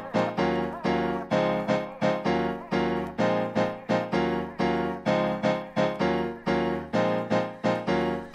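Soul music: a piano-like keyboard, likely electric piano, plays repeated chords in a steady rhythm, about two or three a second, each chord dying away before the next.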